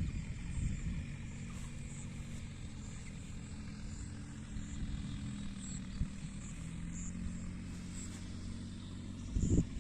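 A steady, low engine drone with an even hum, and a brief louder rumble near the end.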